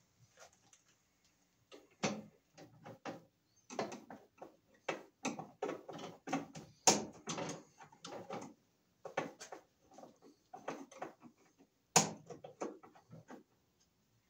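Irregular clicks, knocks and light rattles of wires and metal parts being handled inside an open breaker panel as the red and black conductors of a 220-volt circuit are unhooked. Two sharper clicks stand out, about seven seconds in and again near twelve seconds.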